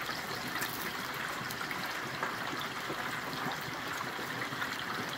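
Hot frying oil bubbling and sizzling hard around a whole turkey just lowered into an electric turkey fryer, a steady crackling fizz: the moisture on the bird is boiling off as steam.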